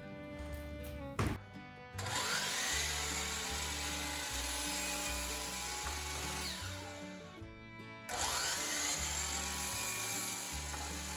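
Background music with a steady bass line, over which a power tool runs twice, its motor spinning up each time it starts, about two seconds in and again about eight seconds in.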